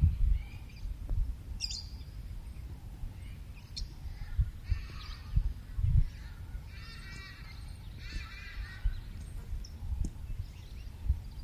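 Birds calling in short, scattered calls, with two longer harsh calls about two-thirds of the way in, over irregular low rumbling.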